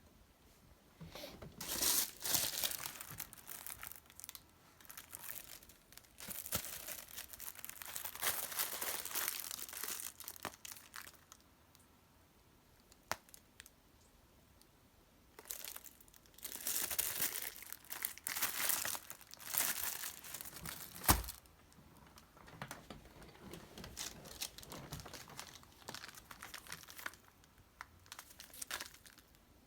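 Plastic packaging crinkling and rustling as it is handled, in three stretches with short pauses between them. There is one sharp knock a little past two-thirds of the way through.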